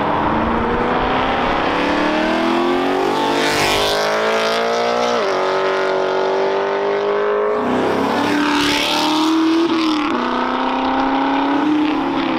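A car accelerating hard away. The engine's pitch climbs, drops back at each gear change, about five, eight and ten seconds in, and climbs again.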